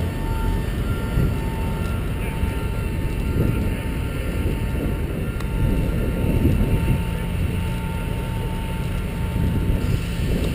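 Jet noise from a parked C-17 transport aircraft on an ice runway: a loud, steady low rumble with a thin high whine over it.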